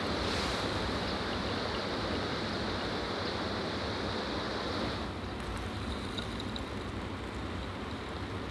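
A steady rushing noise, then from about five seconds in, hot water poured from a kettle onto ground coffee in a portable coffee maker, with faint crackling ticks.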